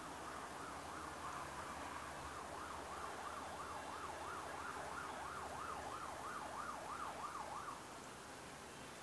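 Faint emergency-vehicle siren in a fast yelp, rising and falling about three times a second with ever wider swings, then cutting off abruptly near the end.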